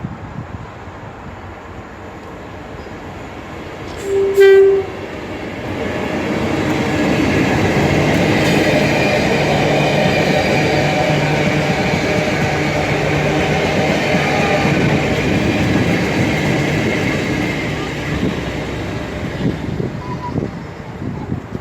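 A train sounds one short, loud horn blast about four seconds in, then passes close by: about ten seconds of loud rumble with a steady drone, fading near the end.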